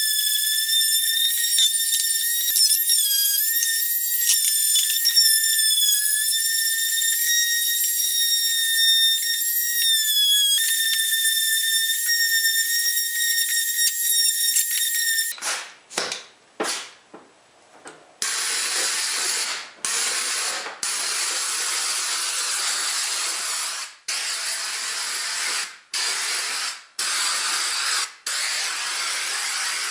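Electric sander with a red pad sanding pine pallet wood and carved door trim, its motor giving a steady high-pitched whine. About halfway through the sound changes to a coarser rasping hiss that stops and starts abruptly many times.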